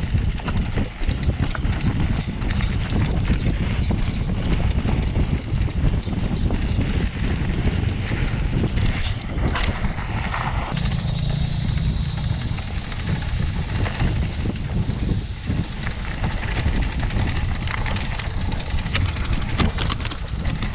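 Mountain bike riding fast over a rough dirt trail: wind buffeting the camera microphone, with the tyres and the bike rattling and knocking over bumps.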